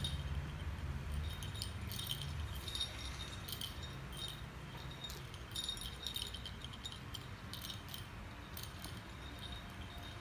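A small bell on a cat's collar jingling in irregular bursts as the cat pounces and wrestles, over a low hum that fades out in the first couple of seconds.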